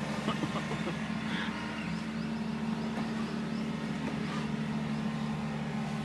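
Excavator's diesel engine running steadily at a constant speed, a low even hum.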